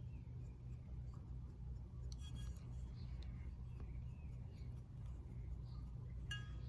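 Faint rubbing and light scratchy taps of a sponge working paint into the recesses of an ashtray, over a steady low hum.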